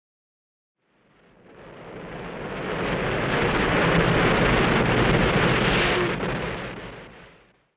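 Logo sting sound effect: a rushing swell that builds up after about a second, peaks with a high rising whistle, then fades away.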